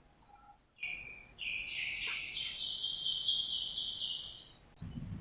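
A high, continuous bird call, about three and a half seconds long, beginning about a second in and stepping up in pitch at its start.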